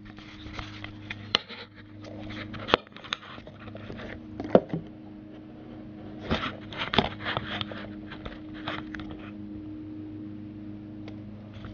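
Indoor handling noises: scattered sharp clicks and knocks and bouts of rustling over a steady low hum, dying away after about nine seconds.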